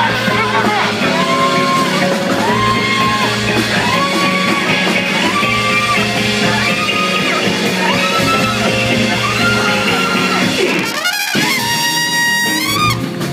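Loud live band music: drums, guitar and keyboard under a saxophone playing the same short riff over and over. About eleven seconds in, the band drops out briefly with a rising sweep, then comes back with short stepped horn notes.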